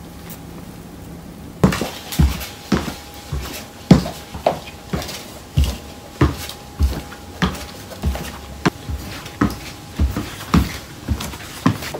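Homemade milk-carton stilts knocking on a wooden floor as someone walks on them, one hollow clonk per step, roughly every 0.6 seconds. The steps start about two seconds in.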